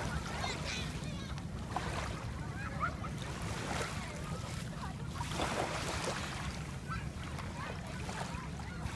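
Sea waves washing ashore, with wind rumbling on the microphone and faint distant voices; the surf swells about halfway through.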